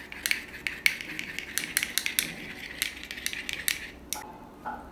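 Spoon stirring a liquid mixture in a small ceramic bowl, clicking against the sides about three times a second with a light scraping between the clicks.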